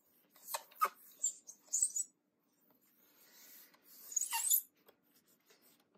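A hand rubbing across the iBook G4's white plastic bottom case, still damp from cleaning, with skin squeaking on the glossy plastic several times. The last squeak, a little past four seconds, is the loudest.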